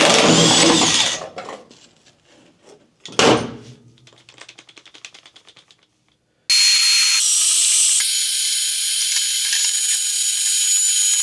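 Metal clunks and rattling as parts are pulled loose in a truck cab, then a run of fast ratchet clicks, then a loud steady hiss with a thin high whistle over the last five seconds.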